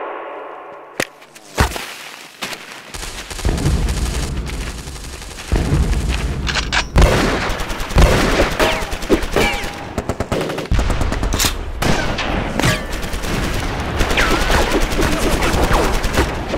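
Battle sound effects of gunfire: a couple of single shots, then from a few seconds in, dense rapid bursts of machine-gun fire.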